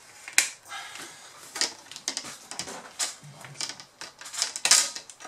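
Plastic display bezel of a Lenovo U310 laptop being pried off by hand. Its clips snap loose in a series of clicks and cracks, the loudest about half a second in and again near the end.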